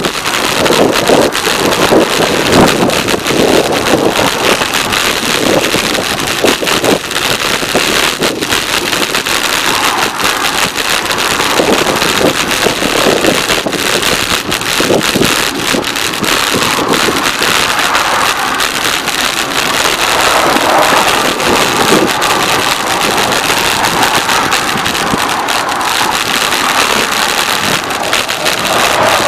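Steady highway traffic from the multi-lane expressway beside the trail, mixed with wind buffeting the microphone of a moving bicycle.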